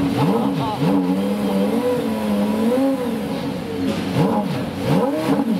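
Porsche Carrera GT's 5.7-litre V10 idling while stationary, blipped with several short throttle revs that rise and fall quickly, two early on and two more near the end.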